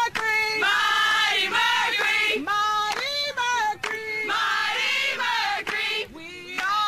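Music: a song carried by singing voices, with held, sliding sung notes changing about every half second.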